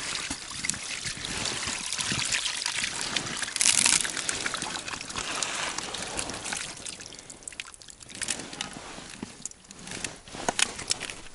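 Water and a catch of roach and perch pouring and splashing out of a plastic bucket onto wet, slushy ice, loudest about four seconds in and thinning to a quieter trickle in the later seconds.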